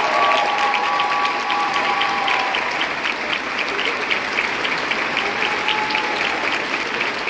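Theatre audience and stage company applauding steadily, with close, quick claps standing out at about four a second. A few voices call out in the first couple of seconds.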